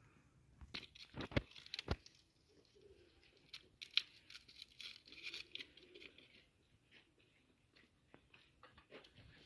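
Scattered rustling, crinkling and sharp clicks, in two bursts about a second in and again from about three and a half to six seconds in.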